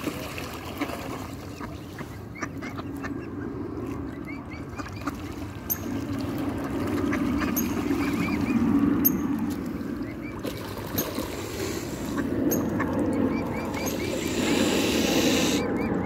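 Mallard ducks calling in runs of short repeated quacks and splashing in shallow water as they scramble for food, over a steady low rush of water.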